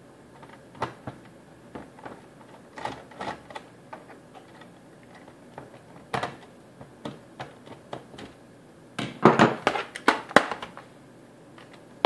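Scattered light clicks and ticks of a hand screwdriver working screws out of a plastic desk phone's housing. Around nine seconds in comes a cluster of louder knocks and clatters as the plastic phone and the screwdriver are handled and set down on the wooden table.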